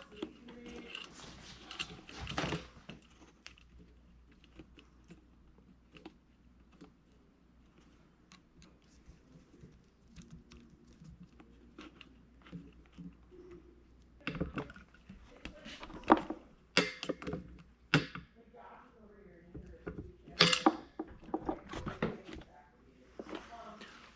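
Scattered small clicks, taps and knocks of hands and tools working a hose clamp onto an air compressor hose, with the loudest knocks in the second half.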